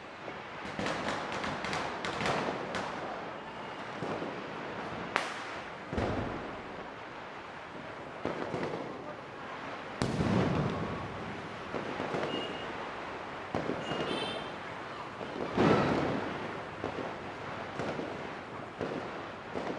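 Diwali firecrackers going off in a string of crackling pops and sharp bangs. Heavier booms come about ten seconds in and again about sixteen seconds in.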